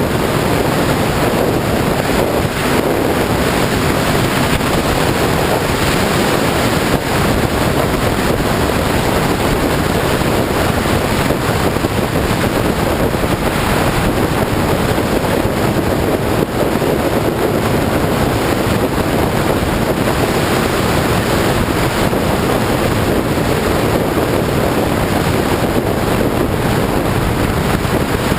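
Steady, loud wind rush over the microphone of a sport motorcycle at road speed, with the bike's engine running underneath it.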